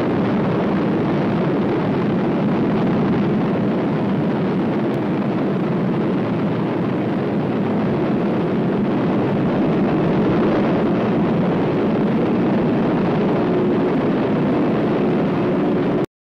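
Original recorded sound of the 1956 Zuni thermonuclear surface burst: a steady, dense low rumble with faint held tones inside it and no distinct bang. It cuts off abruptly near the end.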